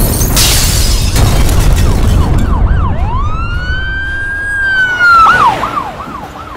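A loud rushing noise, then a siren. After a few quick yelps it gives one long wail that rises, holds and drops, then goes back to fast repeated yelps.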